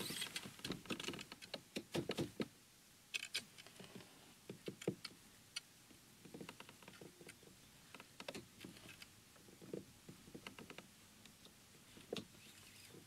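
Faint, irregular light clicks and knocks from fishing rod and tackle being handled in a kayak.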